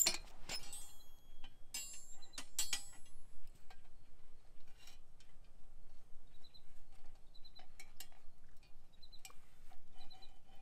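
Metal clinking and ringing of an enamelware coffee pot's wire bail against the iron hook of a camp cooking crane as the pot is lifted and hung over the fire, the sharpest clinks in the first three seconds, then scattered light ticks.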